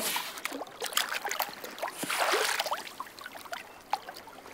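Lake water splashing and dripping around people in the water, with many small sharp splashes and a longer rush of water about two seconds in, as a soaked swimsuit top is pulled up out of the lake.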